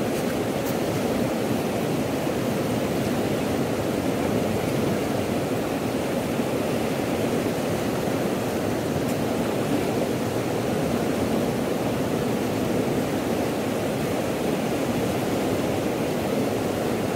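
Steady rush of a fast, muddy river pouring over rocks and rapids.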